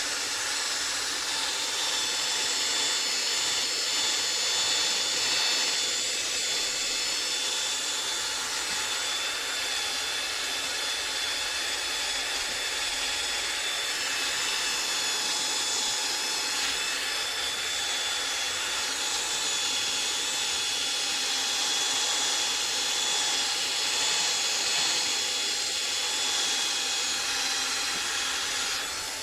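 Electric drill running steadily with a polishing pad, buffing compound into a guitar neck's finish: a continuous high whine that swells slightly now and then.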